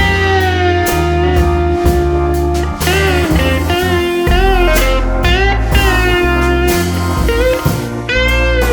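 Background music led by guitar, with notes that slide up and down over a steady bass line.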